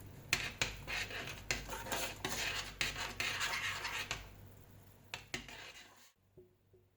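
A metal spoon scraping and clinking against a bowl in quick strokes, mixing the tantanmen ramen soup seasonings. A few lighter clicks follow, and the sound cuts off about six seconds in.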